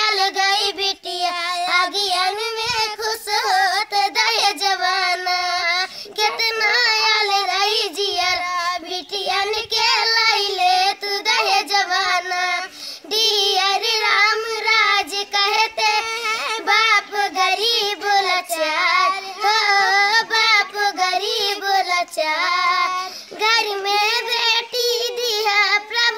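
Two children singing a song together without accompaniment, line after line with short pauses between phrases.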